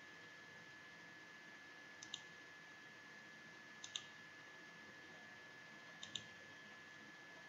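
Computer mouse clicks against near silence: three quick double ticks, about two seconds apart, over faint hiss and a thin steady whine.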